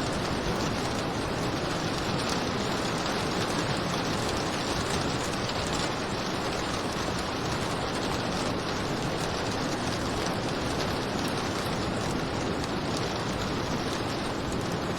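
Steady rain falling, an even hiss with faint ticks of individual drops.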